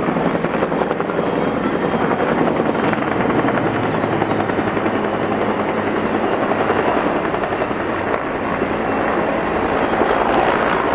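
Sikorsky S-64 Air-Crane heavy-lift firefighting helicopter flying close by, its rotor beating steadily over the engine noise.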